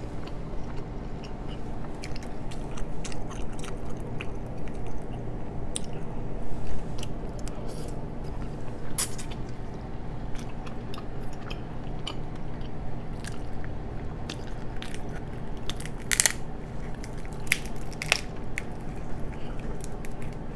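Close-miked chewing of king crab meat, with scattered sharp clicks and cracks of crab shell and fork being handled; the loudest crack comes about sixteen seconds in. A steady low hum runs underneath.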